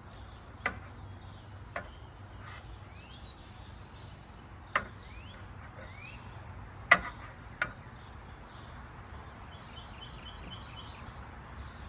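Tongs clicking and tapping as chicken thighs are handled in the cooking pan: about five sharp clicks, the loudest about seven seconds in. Birds chirp in the background.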